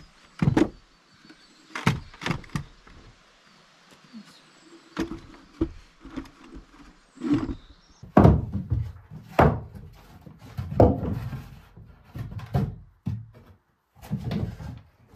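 A string of irregular knocks and thuds, hard objects being handled, knocked together and set down, the heaviest thuds a little past the middle.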